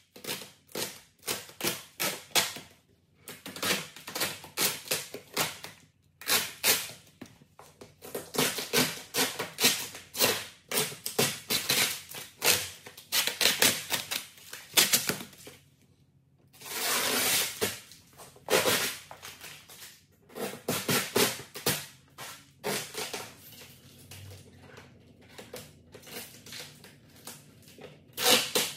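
XPEL Tracwrap, a temporary clear protective film, being peeled off a car's painted front bumper and bunched by hand: dense crackling and crinkling of the plastic film, with one longer, steadier peel partway through.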